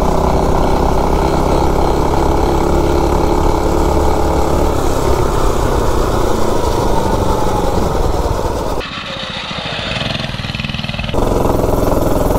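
Mini bike's single-cylinder Predator 212-block engine, with stock pipe and carb, running hard at high revs under load; the tall gearing keeps it short of its 6,000 rpm rev limiter. About nine seconds in the sound cuts abruptly to a quieter stretch for about two seconds, then the engine returns.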